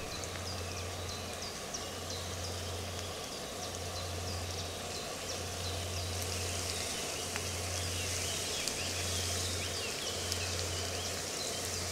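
Diced potatoes frying in hot oil in a pan on a gas camping stove, a steady sizzle, with birds chirping throughout.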